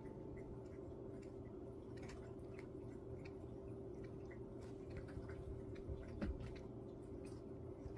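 Quiet room tone: a faint steady hum with scattered small clicks and ticks, the loudest a little after six seconds.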